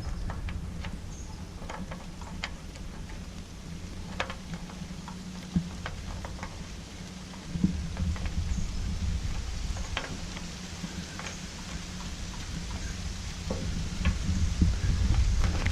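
Scattered light clicks and taps from handling the wood chipper's engine, putting back the oil dipstick and going to the fuel cap, over a low steady rumble, with a slightly louder knock about halfway through.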